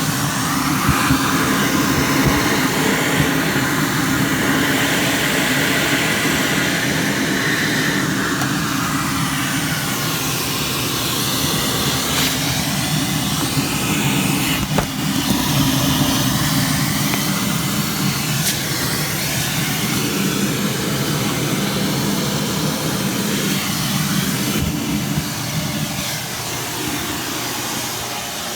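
A vacuum cleaner running steadily, sucking loose debris, with the tone of its airflow slowly shifting up and down.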